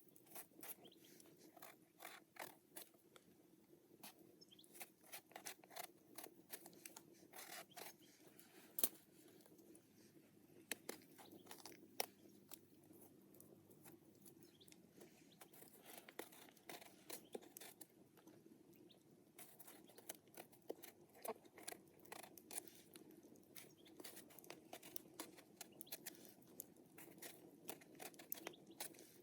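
Quiet food-preparation sounds: irregular small clicks and crunches of ingredients being cut or handled, a couple of sharper clicks near the middle, over a faint steady hum.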